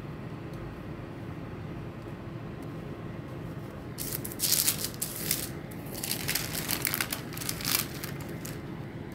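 A sheet of baking paper rustling and crinkling as it is handled and spread flat on a counter, in a burst about four seconds in and another from about six to eight and a half seconds. A steady low hum runs underneath.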